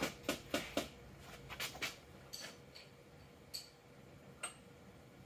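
Irregular light clicks and metallic taps from a front axle's steering knuckle and hub being turned and handled by hand. They come quickly over the first two seconds, then a few single ones with a brief ring, the last about four and a half seconds in.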